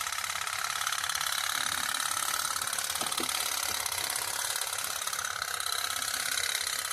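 Tin pop-pop toy steam boat running, its candle-heated boiler giving a fast, even stream of popping. The candle turns the water left in its two pipes into steam.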